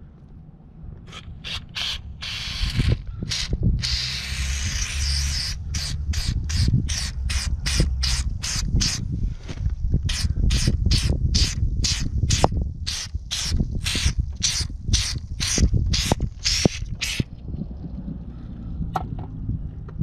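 Aerosol spray can hissing through its straw nozzle: two longer sprays, then a rapid series of short squirts, about three a second, that stops about 17 seconds in.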